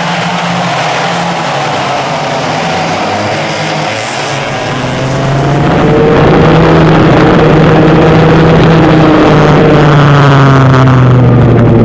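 Vintage twin rear-engine racing karts and their two-stroke engines. First a pack of karts is heard running past trackside; then, from about five seconds in, the kart's own pair of engines comes in much louder and close up, several engine pitches drifting up and down as the driver works the throttle.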